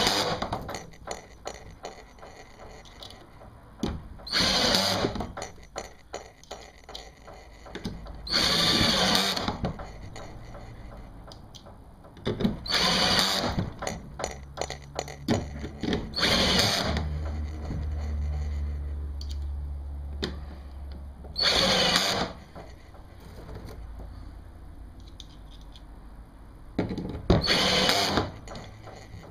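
Power drill driving self-tapping, self-sealing screws into a kayak's plastic hull to hold a gear track, in about seven short bursts of around a second each, a few seconds apart.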